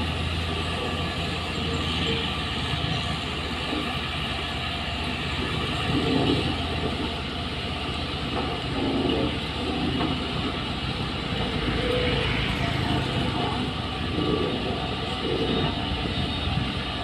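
Heavy construction machinery's engine running steadily, a continuous low hum with small swells in level.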